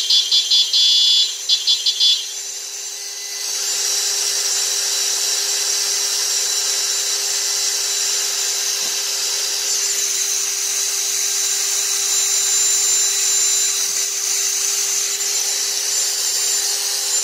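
Motorized bicycle engine running steadily at about 1700 RPM, driving a stepper-motor generator that powers the lights and horn. In the first two seconds an electric horn on that generator beeps in two quick runs of short pulses as it is switched on and off.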